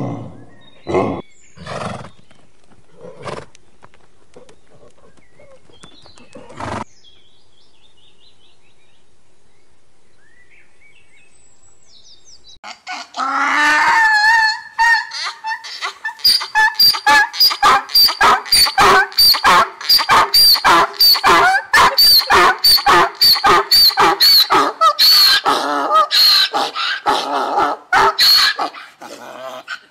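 An animal making a few short low calls, then, after a quiet pause, a long fast run of high-pitched calls, about two to three a second.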